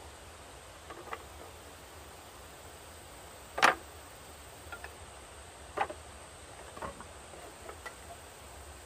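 Bamboo poles knocking against each other and against a bamboo frame as they are handled and laid in place. One sharp knock about three and a half seconds in is the loudest, followed by a few lighter knocks and clacks over a steady hiss.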